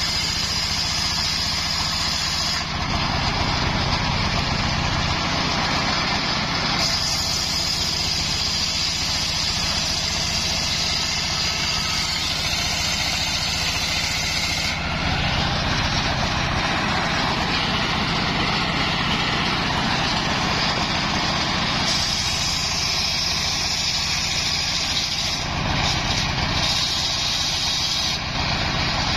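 Homemade engine-driven circular sawmill running steadily while its blade rips a coconut-wood log lengthwise into planks.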